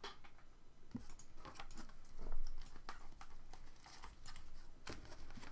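Foil trading-card pack wrappers and cards being handled, with light crinkling and scattered small clicks and ticks.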